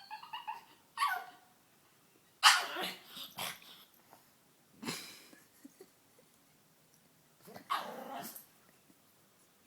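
A pug making odd dog vocalisations in about five separate bursts. There are squeaky calls that fall in pitch, which the uploader likens to a dolphin, and harsher bark-like noises. The loudest comes about two and a half seconds in.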